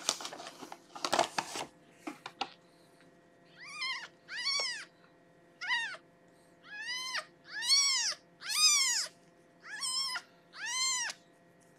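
Rustling of a towel as the kitten is handled in the first couple of seconds, then a week-old kitten mewing again and again: about eight high cries, each rising and then falling in pitch.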